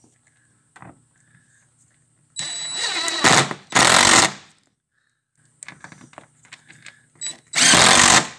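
DeWalt cordless impact driver run in three short bursts, driving a screw through a door-check cable's anchor plate, with light clicks of handling between the second and third bursts.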